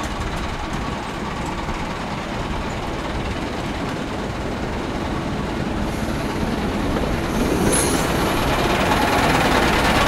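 A 12-inch gauge miniature railway train, a small diesel locomotive hauling carriages, running along the track towards the listener and growing steadily louder. A brief high squeal comes about three quarters of the way through.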